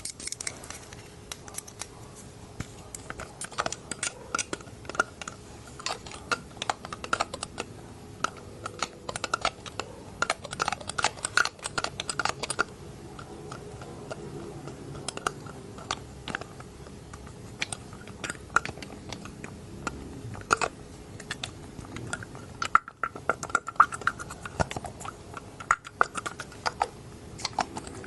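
Close-miked ASMR dropper (conta-gotas) sounds: the rubber bulb is squeezed and handled in an irregular run of soft, wet clicks and squelches, bunching into quick flurries, the loudest a little over 20 seconds in.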